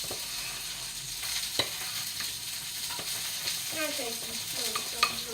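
Pancake batter being stirred in a bowl, the utensil tapping the bowl sharply a few times, over the steady sizzle of link sausages and eggs frying in a pan.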